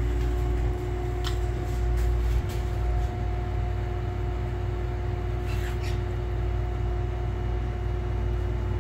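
Steady low machine hum with a constant tone, like a fan or motor running, with two faint short high sounds, about a second in and again around the middle.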